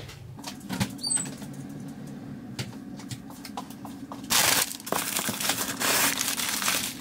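Paper packing bags rustling and crinkling as they are handled and pulled from a cardboard shipping box, loudest in bouts from about four seconds in, over a low steady hum.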